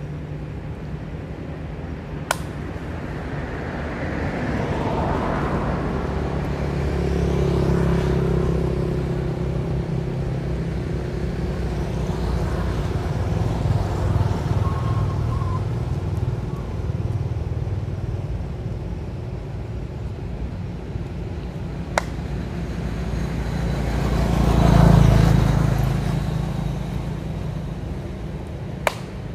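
Motor vehicles passing: a steady low engine hum that swells and fades twice, loudest about twenty-five seconds in. Three sharp clicks stand out, near the start, about twenty-two seconds in, and near the end.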